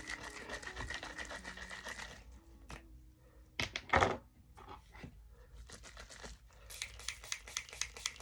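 Handling noise from a spray bottle of leave-in conditioner and hair: scratchy rustling and clicking at first, a couple of sharp knocks about four seconds in, and a quick run of clicks near the end.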